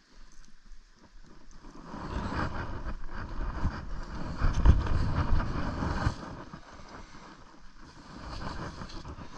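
Wind rumbling on the microphone, weak at first, swelling about two seconds in and easing off after about six seconds.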